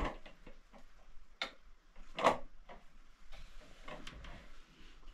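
A few light clicks and knocks, the loudest about two seconds in.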